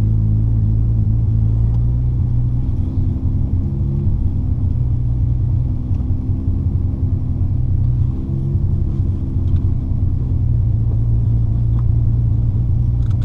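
Nissan Skyline R32 GT-R's single-turbo RB26 straight-six idling steadily, heard from inside the cabin.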